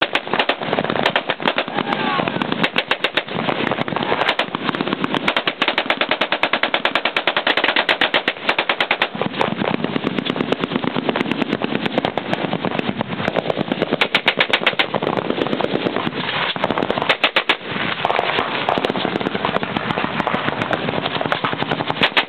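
Several machine guns firing fully automatic at once, rapid strings of shots overlapping with no pause.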